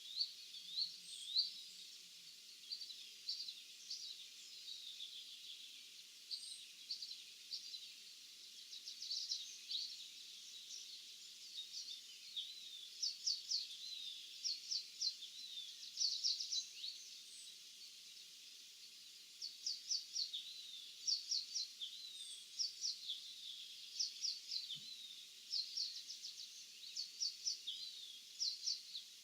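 Several small songbirds chirping and singing in a field, in quick runs of short high notes with brief pauses between them, and an occasional thin higher call every few seconds.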